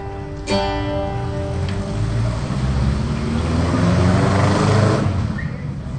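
An acoustic guitar chord is strummed about half a second in and left to ring out, then a low rumbling noise swells and drops away near the end.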